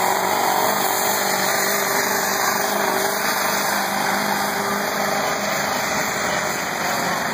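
Modified stock pickup truck's engine running hard at high, steady revs while pulling the sled.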